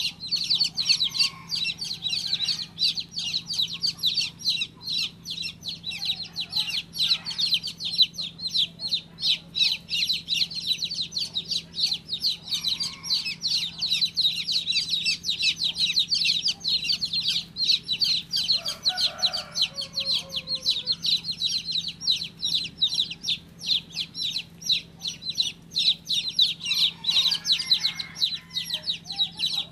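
Baby chicks peeping without pause: a dense stream of short, high chirps overlapping one another, several a second.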